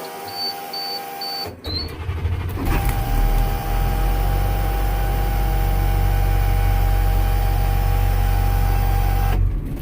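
School bus emergency-exit (back door) alarm buzzing in a steady tone as the ignition comes on, with a short run of quick high beeps. About a second and a half in the engine cranks, the buzz dropping out while it does. The bus engine catches and runs with the alarm buzzing steadily over it, and both cut off together near the end.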